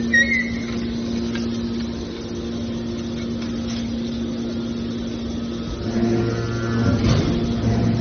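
Automatic hydraulic metal baler running: a steady motor-and-pump hum with a brief high squeak at the start. About six seconds in the hum deepens and grows louder, with a knock about a second later.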